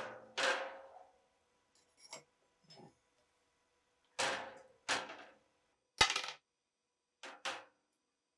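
Metal ShKAS machine-gun parts knocking and clinking against a stainless steel tray of liquid: several sharp knocks, each with a brief ring, the loudest about six seconds in.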